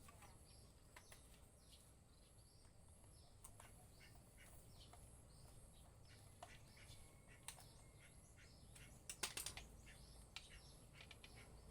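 Near silence: faint scattered clicks and taps of an angle grinder's parts being fitted back together, with a quick run of louder clicks about nine seconds in.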